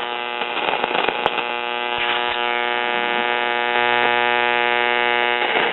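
A 1987 GE portable AM/FM radio's speaker gives a steady buzzing hum with static while it is tuned between stations, and a faint whistle falls in pitch about two seconds in.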